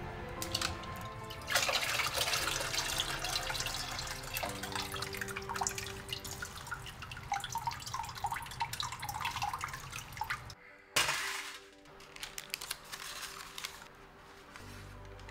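Water splashing and dripping as blanched shredded celtuce is drained and handled in a stainless steel colander over the sink, lasting until about ten seconds in. Background music plays throughout.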